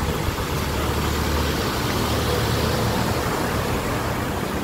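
A vehicle engine running steadily with a low hum, under an even wash of water and wind noise from the flooded street.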